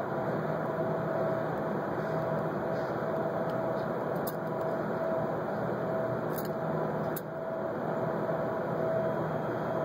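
A tobacco pipe being relit with a lighter flame held to the bowl: a steady rushing noise with a few faint clicks.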